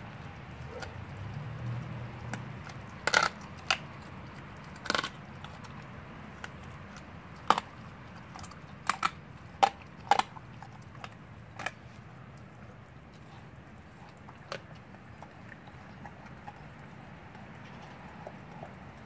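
Blue Bay Shepherd dog crunching the bones of a raw rabbit rib cage: about ten sharp cracks at irregular intervals, most of them in the first two-thirds, over a steady low background rumble.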